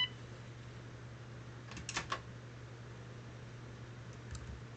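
A short electronic beep from a phone just hung up, then a quick run of sharp clicks about two seconds in and softer clicks near the end, over a steady low hum.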